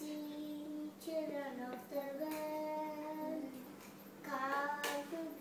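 A child singing, holding long steady notes between short phrases, with a louder phrase near the end.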